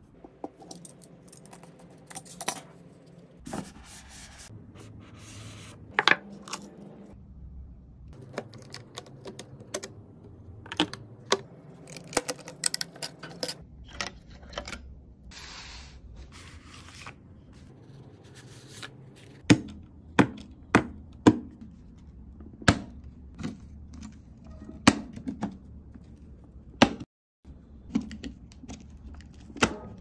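Handling of computer parts in their plastic and cardboard packaging: scattered taps, clicks and rustles. In the second half comes a run of about nine sharp plastic clicks, roughly one a second.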